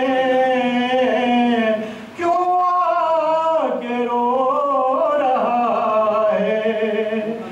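A man singing a naat unaccompanied, drawing out long held notes that bend and waver in pitch, in two phrases with a brief breath about two seconds in.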